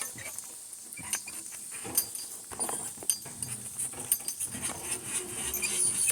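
Harness hardware on a pair of walking donkeys clinking and jingling in quick irregular clicks, over a steady high insect trill.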